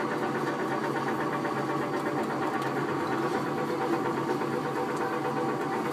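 Amusement-ride kiddie tractor's motor running steadily with an even hum as the tractor drives along.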